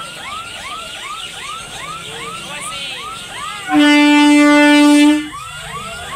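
Eastern Railway EMU local train sounding its horn in one loud, steady blast of about a second and a half, starting nearly four seconds in and cutting off sharply. Under it, a level-crossing warning alarm warbles, each rising-and-falling tone repeating about two and a half times a second.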